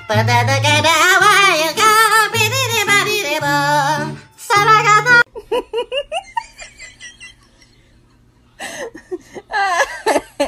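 A song with a sung voice over a steady bass line, which cuts off abruptly about five seconds in. Then someone laughing in short pitched bursts that fade away, with more laughter picking up near the end.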